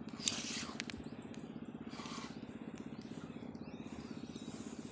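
Small boat engine running steadily with a fast, even putter. A brief rush of noise comes about a third of a second in, and another around two seconds in.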